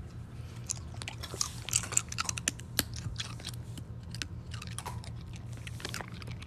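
A dog crunching and chewing a small crunchy treat it has just taken from a hand: a quick, irregular run of crisp bites, loudest and thickest in the first half.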